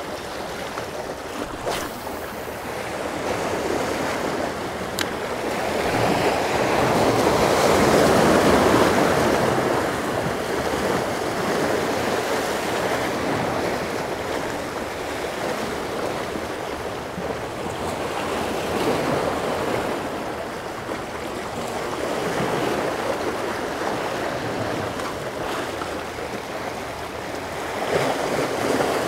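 Surf washing against a jetty, with wind; the wash swells louder about six seconds in and again near the end.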